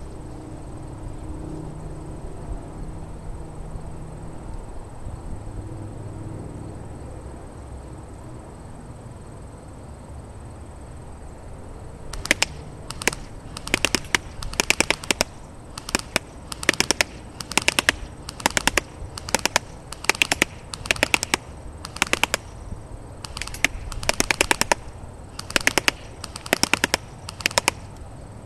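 Cybergun Thompson M1A1 airsoft gun firing on full auto in many short bursts of rapid clicking shots, starting about twelve seconds in. Before the firing starts there is only wind rumbling on the microphone.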